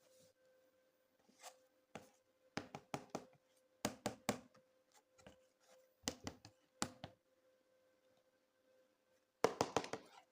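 Hands handling plastic toy pieces: clusters of short clicks and taps, the last and loudest cluster near the end, over a faint steady hum.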